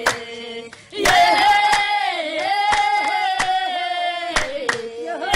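A group of women singing long, held notes together, accompanied by hand claps. The singing starts about a second in.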